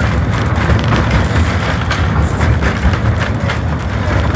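La Trochita narrow-gauge train running along the track, heard from its carriage as a steady heavy rumble with occasional faint irregular clicks from the wheels and rails.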